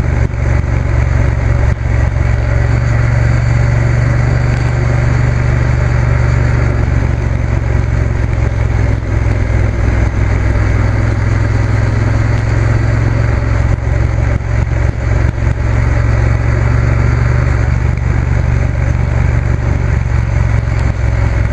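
Motorcycle riding at a steady cruising speed: an even engine drone with rushing wind and road noise, no change in pitch.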